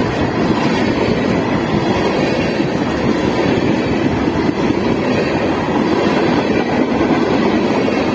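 Manifest freight train rolling past, a steady noise of wheels on the rails with no horn sounding.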